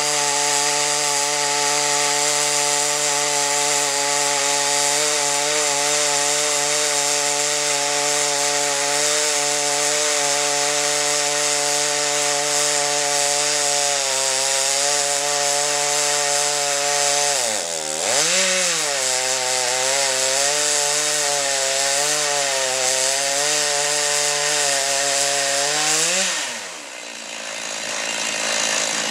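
Two-stroke chainsaw on a homemade chainsaw sawmill running at full throttle, ripping a plank from an oak log with a steady engine note. About eighteen seconds in the pitch dips sharply and recovers as the engine bogs under the cut. Near the end the pitch rises briefly, then the engine sound drops away.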